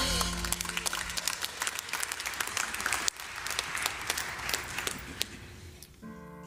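Congregation applauding as a brass ensemble's final chord dies away; the clapping thins out and fades about five seconds in, and a piano begins playing near the end.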